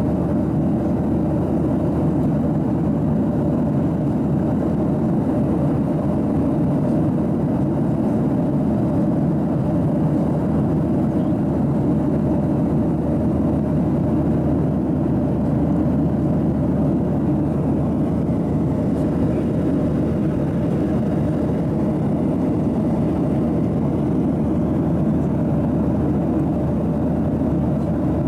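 Steady low drone inside the cabin of a Boeing 737-800 at cruise, the rush of airflow and its CFM56-7B turbofan engines, with a faint steady hum.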